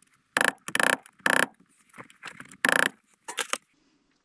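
A series of six short, sharp metallic clacks, three close together near the start and three more in the second half.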